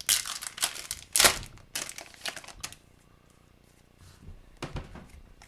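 Wrapper of a 2022-23 Upper Deck Series 1 hockey card pack being torn open and crinkled for about the first three seconds, then a quieter stretch with a few soft taps of the cards being handled.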